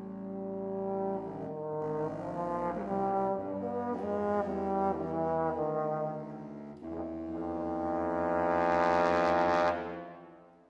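Trombone and contrabassoon duet: the contrabassoon holds a low sustained note under a trombone line that moves through a series of notes. About seven seconds in both come back in a long crescendo that breaks off about ten seconds in.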